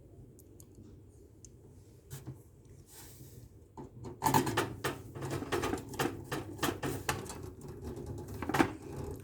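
Screwdriver working the motherboard mounting screws in a metal computer case, a quick run of small metal clicks and scrapes that starts about four seconds in. The screws are being tightened down.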